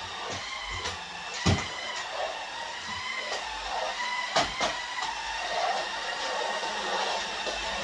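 Cordless stick vacuum cleaner running with a steady motor whine as it is pushed over the floor. A few sharp knocks sound over it, the loudest about a second and a half in and again about four and a half seconds in.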